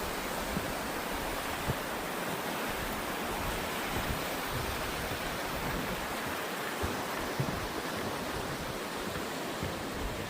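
Steady rush of flowing river water, with a few soft low thumps.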